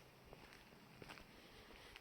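Near silence, with two faint short ticks.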